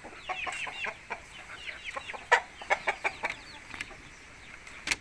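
Chickens clucking in a coop, a scatter of short falling calls, with a few sharp knocks about two and a half seconds in and again near the end.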